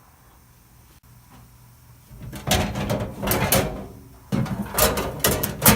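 Refrigeration shroud of a vending machine being pulled out, scraping and rattling in two loud bursts starting about two seconds in.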